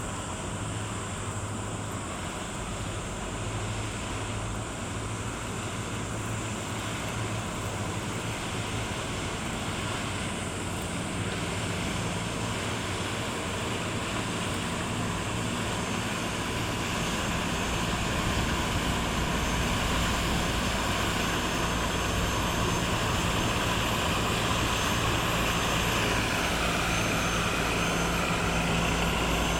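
Engine of a small work boat running steadily as it passes, a low drone that grows gradually louder as the boat draws nearer.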